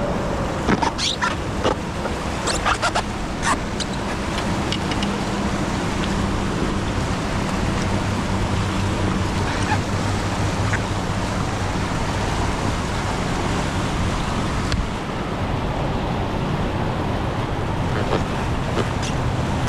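River water rushing around a kayak, a steady noise, with a few sharp splashes or knocks in the first four seconds.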